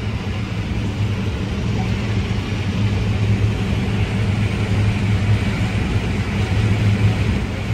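Combine harvester running steadily while harvesting corn, heard from inside the cab: a constant low engine and machinery drone.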